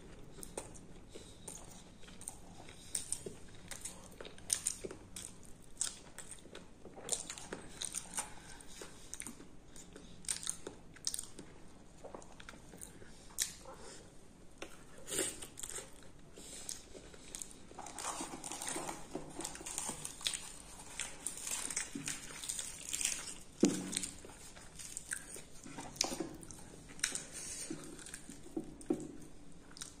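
Close-up eating sounds of a person chewing and biting puri with aloo dum: irregular crunches and clicks of chewing, busiest about two-thirds of the way through, with one sharp crunch just after.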